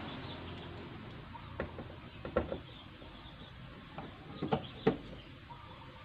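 Screwdriver driving screws into the plastic rear cover of a twin-tub washing machine: a handful of short, faint clicks and knocks, over a low steady background.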